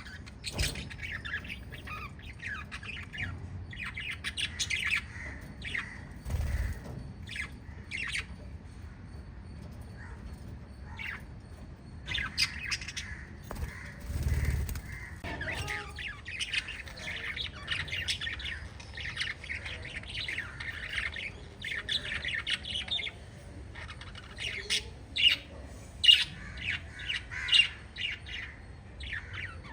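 A small flock of lovebirds chirping and squawking in quick, overlapping short calls, getting busier about halfway through. There are a couple of brief low thumps in the first half.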